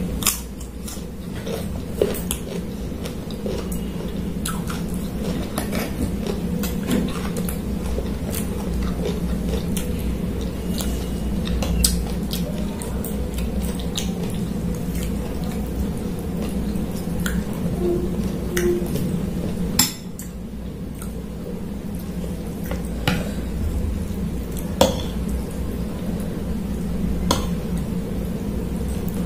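Metal spoon and fork scraping and clinking against a ceramic plate and bowl while eating, in scattered clicks over a steady low hum.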